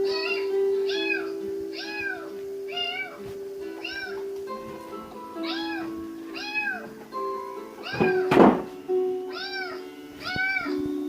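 A cat meowing over and over, about one meow every three-quarters of a second, with music of held notes underneath. A single loud thump comes about eight seconds in.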